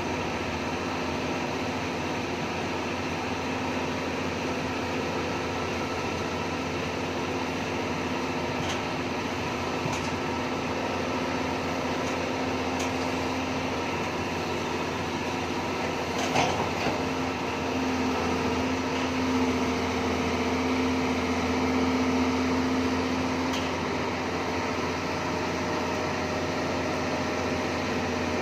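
Doosan DX140AF excavator's diesel engine running steadily with its hydraulics; a short sharp knock about halfway through, then the engine and hydraulics work harder for several seconds as the boom is raised.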